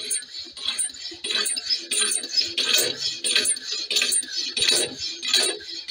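Homemade horizontal alpha-type Stirling engine running, its piston slides squeaking and grinding in a steady rhythm of about three sharp metallic squeaks a second. The sound is the brass piston guides binding on the steel slides, which the owner suspects comes from the brass softening with heat on the hot side.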